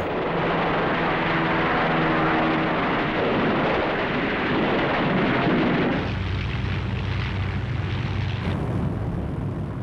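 Aircraft engines droning with a steady hum over a dense roar. About six seconds in, the sound changes to a deeper low rumble.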